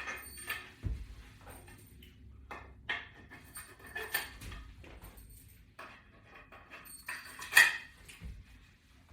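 Metal hardware clinking and knocking irregularly: screws, toggle anchors and a metal latch bar being handled against a wall during mounting. The loudest knock comes about seven and a half seconds in.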